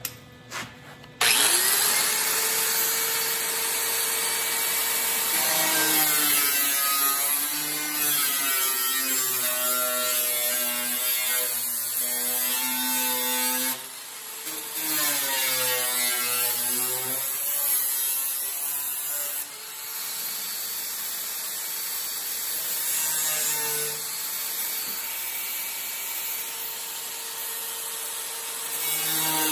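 DeWalt angle grinder with a thin cut-off wheel switched on about a second in, spinning up to a high whine. It then slices along the seam of a tacked-in sheet-steel patch panel, its pitch sagging and recovering as the wheel bites, with a brief let-up about halfway. The cut goes through the overlapped metal to leave a narrow gap for a butt weld.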